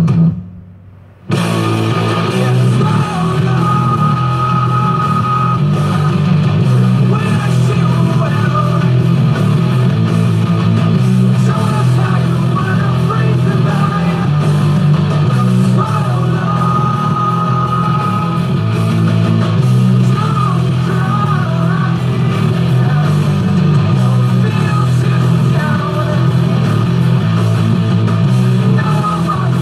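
Loud rock music with guitar, starting up again after a brief gap about a second in and then running on without a break.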